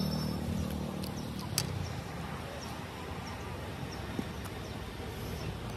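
A motor vehicle's engine hum fading away over about the first two seconds, followed by a quieter background with a few sharp clicks.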